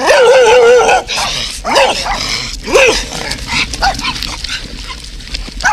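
A loud, drawn-out scolding shout in the first second, then a dog barking in short separate barks, with smaller yips among them near the end.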